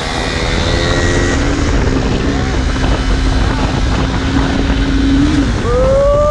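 Motorcycle engine under way, with heavy wind rumble on the microphone. The engine note drops off at first, holds steady at a low pitch for a few seconds, then rises again near the end as the rider opens the throttle.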